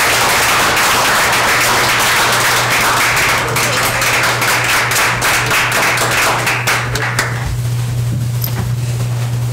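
A roomful of people applauding, a dense patter of hand claps that dies away about seven seconds in, over a steady low hum.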